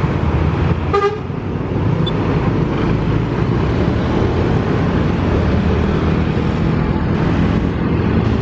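Road traffic with a heavy vehicle's engine running close by and a single short horn toot about a second in.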